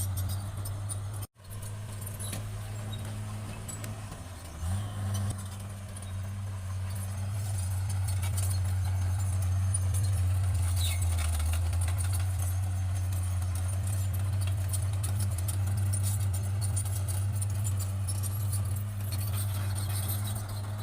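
Bulldozer's diesel engine running with a steady low drone, growing a little louder partway through, with light metallic clinking over it. The sound cuts out abruptly for a moment about a second in.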